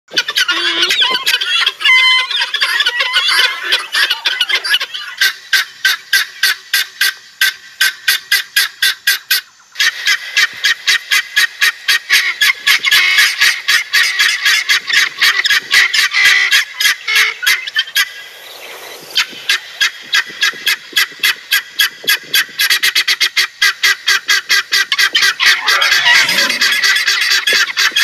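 Several helmeted guineafowl calling, with rapid runs of short, harsh, rattling notes, several a second, overlapping from more than one bird. The calls break off briefly twice, about a third of the way in and again past the middle.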